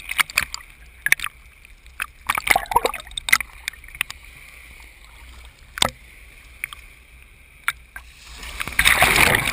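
Small surf waves sloshing and splashing against a GoPro in its waterproof housing at the waterline, with scattered sharp splashes, then a wave washing over the camera near the end as the loudest sound.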